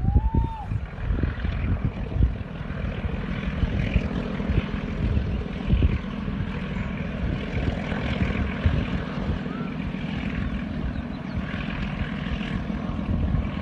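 Distant diesel locomotive of a hill train running steadily as it hauls its carriages along the track, with wind rumbling on the microphone. A short rising-then-falling chirp sounds right at the start.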